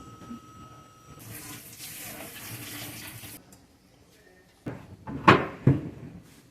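Water running from a tap for about two seconds, followed near the end by a few sharp clattering knocks.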